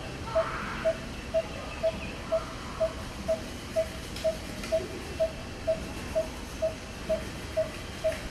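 A steady train of short, identical pitched notes, about two a second, over faint squeaks from macaques in the tree.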